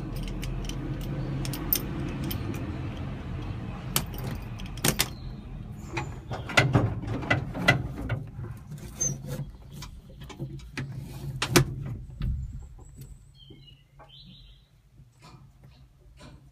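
Clicks and knocks of handling and switches in a combine's cab, over a low steady hum that fades out about twelve seconds in, leaving only faint ticking.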